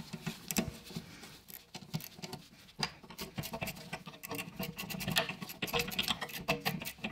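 Wrenches working the last bolt of a VW Golf 5's rear brake caliper: light metallic clicks, ticks and scrapes of steel on steel, scattered at first and quickening into a fast run of clicks from about five seconds in.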